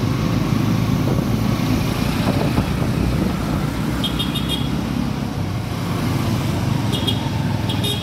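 Motorcycle engine running steadily under way, with road and wind noise, heard from on the bike in town traffic. Short bursts of rapid high beeping come about four seconds in and twice near the end.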